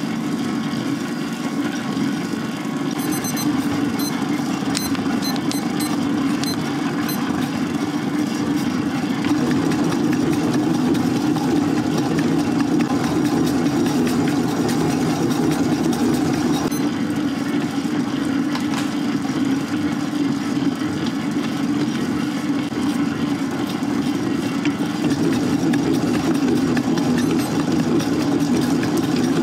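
Electric stand mixer running steadily, its dough hook kneading bread dough in a stainless-steel bowl.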